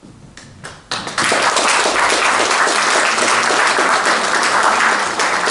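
A few scattered hand claps, then an audience breaking into steady applause about a second in.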